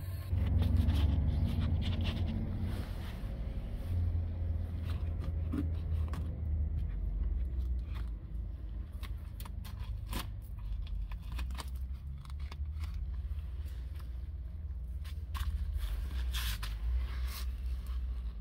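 Scratchy scrapes and clicks of a gloved hand rubbing and prodding rusted car underbody metal, over a steady low rumble.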